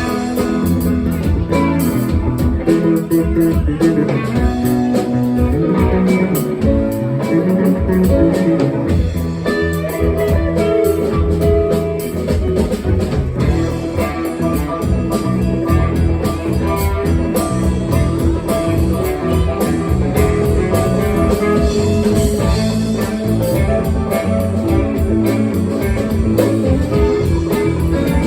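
Live blues band playing an instrumental stretch with no vocals: guitar with bass and drum kit keeping a steady beat.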